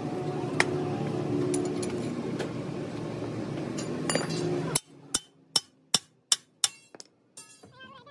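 A steady dense din that cuts off abruptly about five seconds in, followed by a run of sharp metallic clinks, about three a second, typical of a hammer striking steel.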